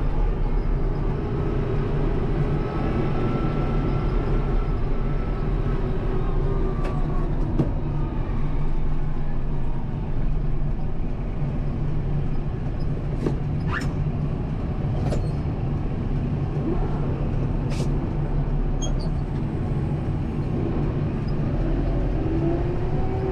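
Kubota M7060 tractor's diesel engine running steadily under load while pushing snow, its pitch drifting up and down, with a few sharp clicks and knocks about halfway through.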